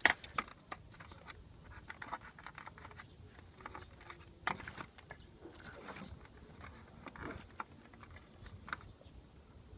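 Faint, irregular light clicks and taps of small shredder parts being handled and set down.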